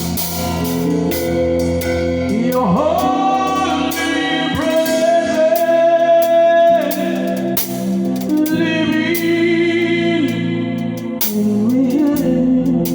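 Live gospel worship band playing a groove, with a voice singing long held notes that bend into pitch, over the band and steady drum strikes.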